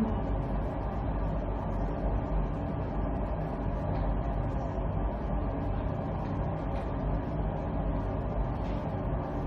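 Steady low machine hum with no change in level, from the running hydrogen-oxygen bubble facial machine.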